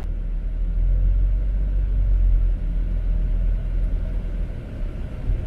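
Low, steady rumble of a tour coach's engine and tyres as it drives, heard from inside the passenger cabin.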